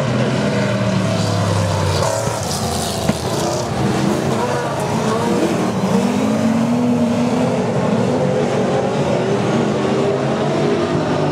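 Several saloon race cars' engines running hard around a speedway oval at once, their engine notes rising and falling as they accelerate and pass.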